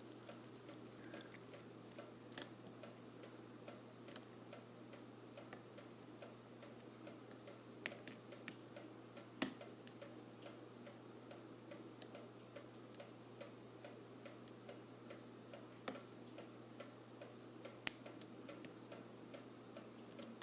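Lock picks working in a Medeco lock cylinder: faint, steady ticking and scratching, with sharper clicks every second or two, over a faint low hum.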